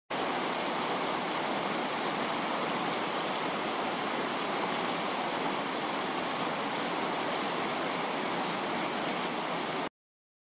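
Heavy rain falling as a steady, even hiss, cutting off suddenly near the end.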